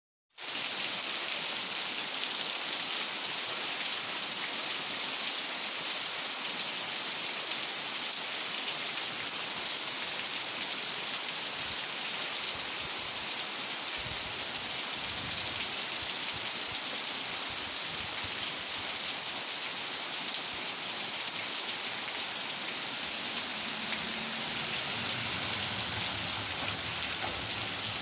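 Heavy rain pouring down in a steady hiss. Near the end a car's engine hum comes in low beneath the rain as it drives along the wet road.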